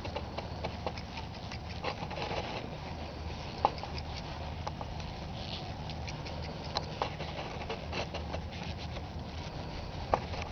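Ridden horse moving over a dirt arena: scattered soft hoof thuds and small clicks of tack, with a couple of sharper knocks, one about a third of the way in and one near the end, over a steady low rumble.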